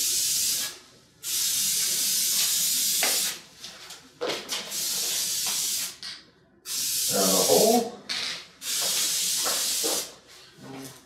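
Aerosol can of spray contact cement hissing in about five separate bursts of one to two seconds each, with short gaps between, as it is sprayed along the edges of a plywood board.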